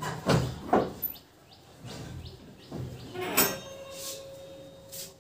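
A few sharp knocks and clicks of parts being handled. Two are close together about a third and three-quarters of a second in, and another comes about three and a half seconds in, followed by a faint ringing tone.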